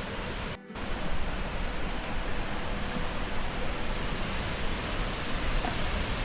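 Steady rushing of a waterfall, which briefly drops out about half a second in.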